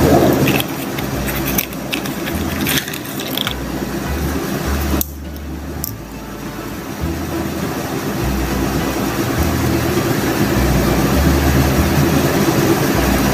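A steady low machine drone, like a fan or motor running. A few light clicks and rattles in the first few seconds come from small items being handled.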